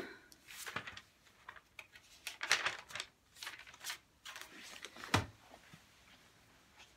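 Irregular rustling and shuffling handling noise as a person moves about and gets up from a seat, with a soft thump about five seconds in.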